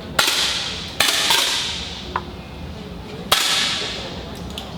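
Three 10 m air rifle shots, sharp pops with a short echo that fades over about a second: two close together at the start, the third about two seconds later.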